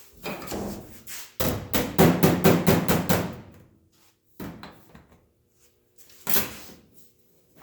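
Hammer blows on a sheet steel patch panel being shaped by hand. A quick run of about five blows a second lasts a couple of seconds, followed by two more single knocks.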